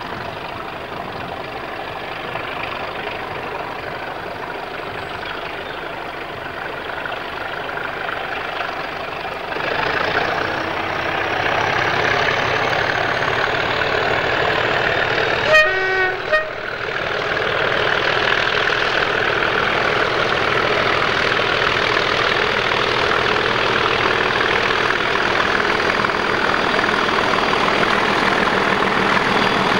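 Class 37 diesel locomotive 37216 approaching with a passenger train, its English Electric engine growing louder about a third of the way in, with a faint high whistle climbing in pitch. Two short horn blasts a little past halfway, then the engine running loud as it draws near.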